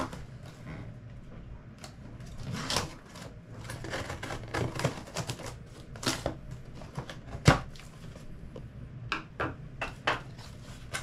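Scissors cutting through a cardboard box, with irregular clicks, scrapes and rustles of cardboard being handled, and a sharp knock about seven and a half seconds in.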